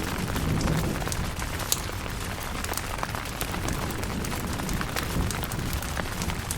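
Steady rain pattering on a tent, with many individual drops ticking sharply, and a low rumble of thunder dying away in the first second.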